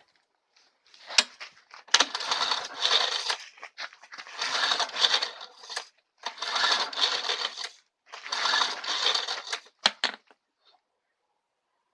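Old Briggs & Stratton lawn mower engine being pull-started from cold: four pulls on the recoil starter, about two seconds apart, each turning the engine over without it catching. A few sharp clicks come before the first pull and after the last.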